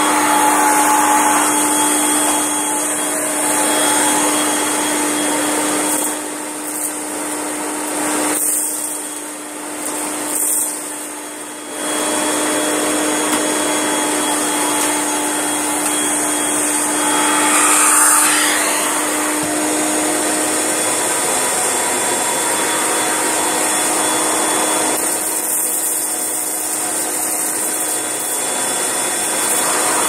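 Kirby G7 Ultimate upright vacuum cleaner running steadily with its hose attached: a steady motor whine with one held tone. The sound dips and wavers for a few seconds about a quarter of the way in, and swells briefly a little past halfway.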